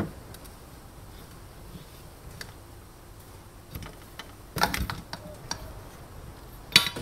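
Black plastic housing and stainless-steel base plate of an Ambiano EC1 egg cooker being pulled apart by hand: scattered light clicks, a louder clatter about four and a half seconds in, and a sharp knock near the end.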